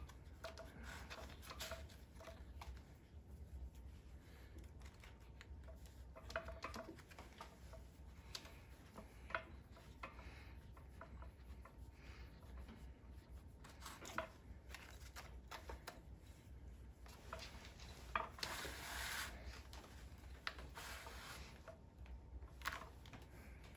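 Faint rubbing, rustling and light clicks of hand inseaming: thread drawn through the leather welt and insole, needles and awl handled. A longer rubbing sound comes about three-quarters of the way through.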